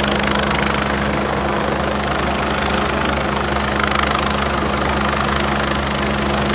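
Helicopter flying overhead, its rotor and engines running steadily with an even, fast rotor beat.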